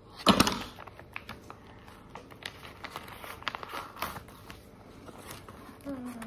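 Blind-bag packaging being cut and opened by hand: crinkling and rustling with many small clicks, and one louder rustle or knock about a third of a second in.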